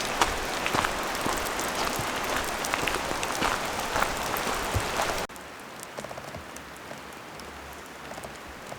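Heavy rain falling, with many sharp taps of drops landing close by. About five seconds in it drops abruptly to a quieter, sparser patter.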